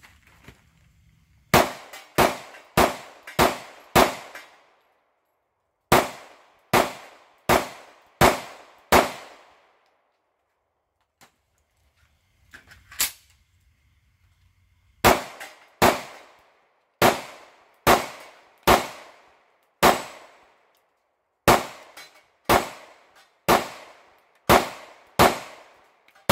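Sig P365 pistol firing at steel silhouette targets, each shot with the clang of the steel and a short ringing tail. The shots come about two-thirds of a second apart in strings: five, a pause, five more, a single shot near the middle, then a long run of about fourteen.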